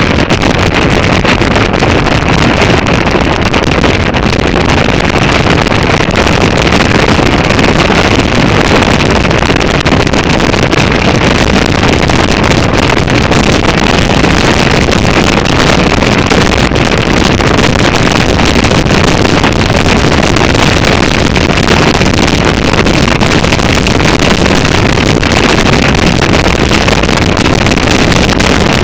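Motorcycle riding at steady road speed: a steady rush of wind over a helmet-mounted microphone, with the engine and road noise underneath.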